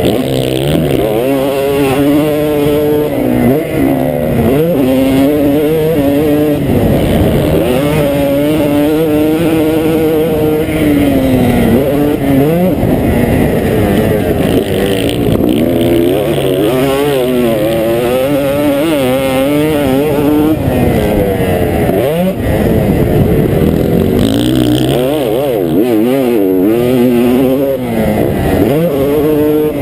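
2002 Honda CR250's two-stroke single-cylinder engine, ridden hard around a motocross track: it revs up, climbing in pitch, and drops off again over and over as the rider works the throttle and gears.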